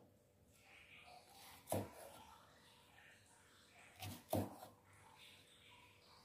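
Cleaver chopping into hard, dried beef skin on a wooden chopping block: one knock a little under two seconds in, then two quick knocks about four seconds in.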